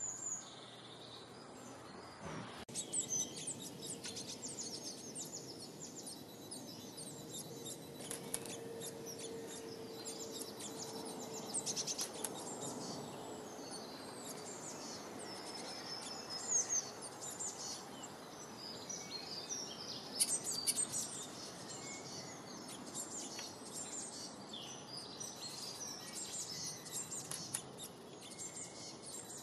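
Small songbirds chirping and singing, many short high calls and trills overlapping; the sound changes abruptly about three seconds in, then the chirping runs on densely.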